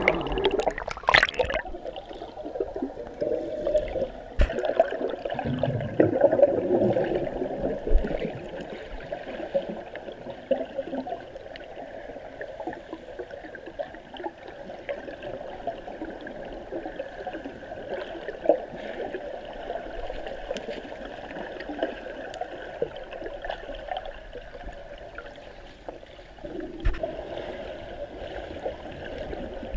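Spring water gurgling and bubbling, with scattered small pops. It is louder for the first several seconds and again near the end.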